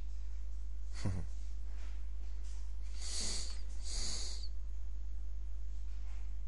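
Two short, hissy breaths, sniffs or exhales close to the microphone, about three and four seconds in, with a brief falling sound about a second in. A steady low electrical hum runs under it all and is the loudest thing.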